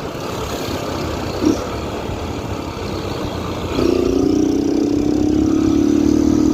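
Yamaha XTZ motorcycle's single-cylinder engine, run without an air filter and with a washer in the exhaust, under way with a rushing noise; about four seconds in the throttle opens and the engine note comes in loud and climbs slowly in pitch.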